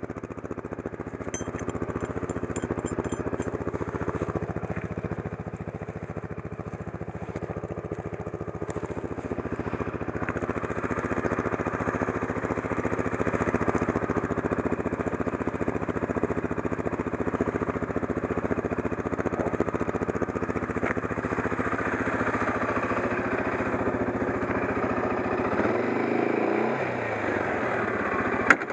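CFMOTO 500 quad's single-cylinder four-stroke engine idling steadily. Near the end the engine note shifts as the throttle is opened, and there is one sharp click just before the end.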